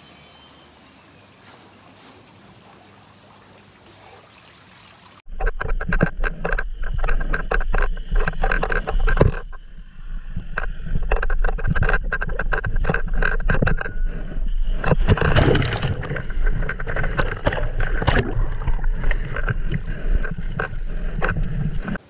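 Faint steady outdoor ambience, then, abruptly about five seconds in, a person riding down a water slide: loud rushing of water and sliding with a heavy low rumble and rapid bumps of body and camera against the slide, briefly easing about halfway.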